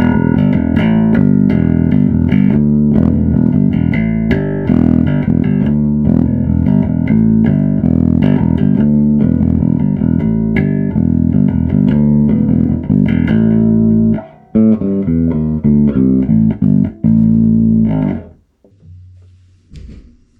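Five-string Dingwall NG3 bass guitar playing a riff through an Ashen APG1000.2 bass amp, with the amp's blend set fully to the clean DI signal rather than the preamp. The playing is continuous, breaks off briefly around 14 seconds in, and stops about 18 seconds in, followed by one short, quieter note.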